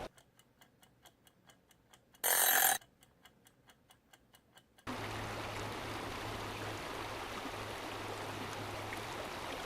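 Clock-ticking sound effect, about four ticks a second, broken by a short loud burst a little over two seconds in. It stops abruptly near the five-second mark, giving way to the steady rush of a mountain stream.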